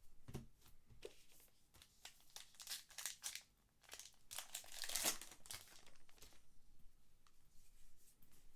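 Baseball trading cards and their plastic packaging being handled: quiet crinkling and rustling, louder in two stretches about three and five seconds in, with light clicks of cards between.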